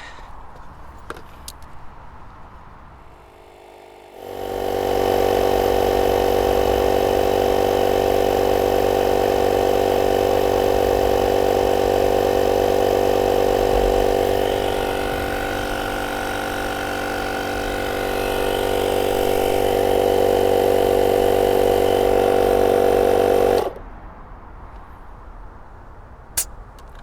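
Built-in air compressor of a JF EGWO 1000A jump starter running steadily while pumping up a van tyre. It starts about four seconds in and cuts off suddenly near the end, followed by a single sharp click.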